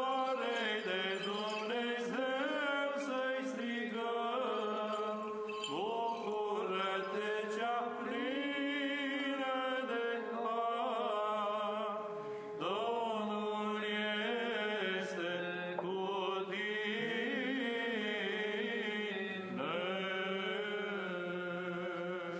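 Background music: a chanted vocal melody sung over a steady held drone note.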